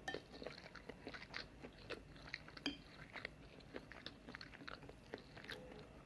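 Quiet chewing of a mouthful of stir-fried udon noodles with tofu and vegetables: soft, irregular wet mouth clicks.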